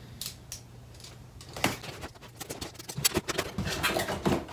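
Cardboard packaging being handled as a box is opened. A few light clicks come first, then from about a second and a half in a run of rustling, scraping and knocks as the flaps are pulled open.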